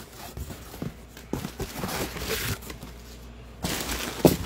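Handling noises from the shipping box the key machine came in: scattered knocks, clicks and rustles, with a louder sharp knock a little after four seconds in.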